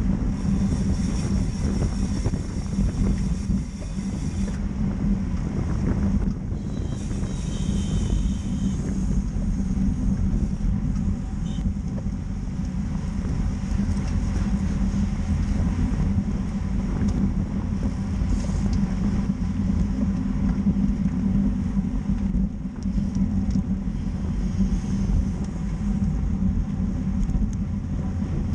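Wind rushing over an action camera's microphone, mixed with the tyre rumble of a road bike riding in a pack at about 24 mph. A steady noise with no pauses.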